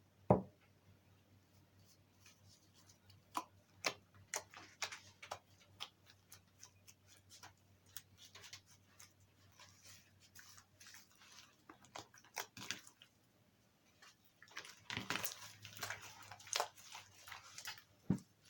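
Slime being squeezed and kneaded by hand: scattered wet clicks and small pops, growing into a thicker run of crackling squelches about fifteen seconds in.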